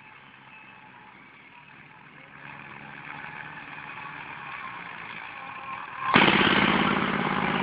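Tractor diesel engine running, faint at first and slowly growing louder, then suddenly much louder about six seconds in.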